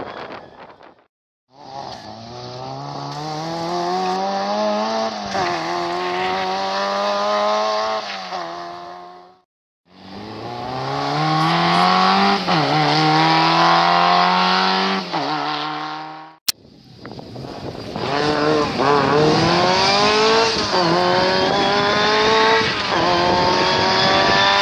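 Rally car engines under hard acceleration, growing louder as they approach, the pitch climbing through each gear and dropping back at every upshift. Three such runs follow one another, each cut off abruptly.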